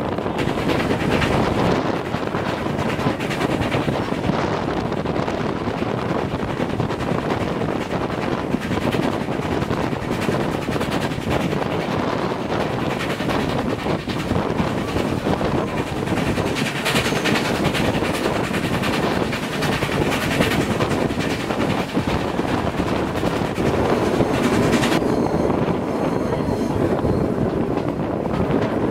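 4-8-2 steam locomotive hauling a passenger train at speed, heard from an open carriage window just behind it: a steady running noise of the engine and wheels on the rails, with wind buffeting the microphone.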